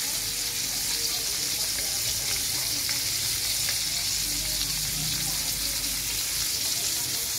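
Whole fish frying in hot oil in a metal wok, a steady sizzle with small crackles and pops from the bubbling oil.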